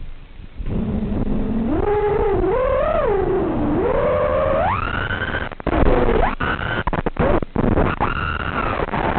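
FPV quadcopter's brushless motors spinning up about a second in to a steady low hum, then whining up and down in pitch with the throttle and climbing steeply. The sound cuts out briefly several times in the middle.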